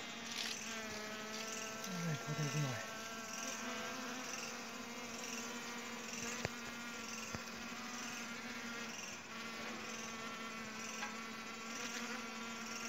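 Honey bees buzzing in a steady hum around their opened hive as the comb is pulled out. A short, low murmur of a voice comes about two seconds in.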